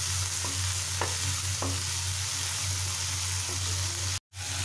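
Chopped vegetables and tomato sizzling in oil in a kadai while a spatula stirs them, at the stage of frying the tomatoes until soft. A few light spatula scrapes against the pan stand out in the first two seconds over a steady low hum, and the sound cuts out for a moment about four seconds in.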